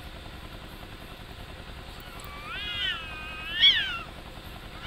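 Domestic cat caterwauling during mating: one drawn-out wail of about a second and a half, starting a little past halfway. It rises, dips and holds, then climbs to a loud peak before falling away.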